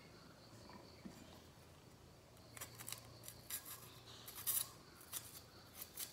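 Knife slicing through a green chilli held in the hand: a run of short, crisp cutting snips, starting about halfway through, over a faint low hum.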